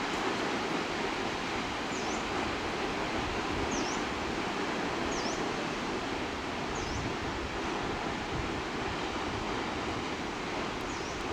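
Waterfall rushing in a steady, loud roar of falling water. A bird's short dipping chirp repeats about five times over it, every second and a half to two seconds.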